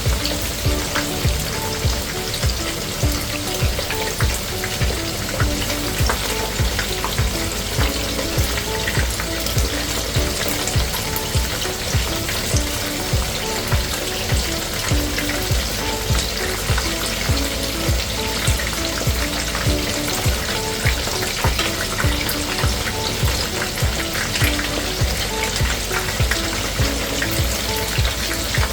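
Flour-coated chicken wings deep-frying in hot oil, a steady crackling sizzle. Background music with a steady beat plays under it.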